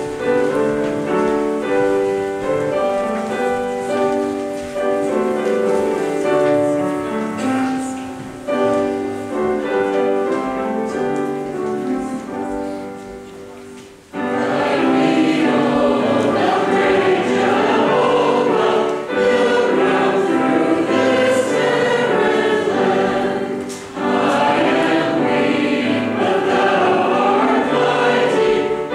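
A hymn in church: held instrumental chords that fade away, then about fourteen seconds in a group of voices comes in singing together with the accompaniment.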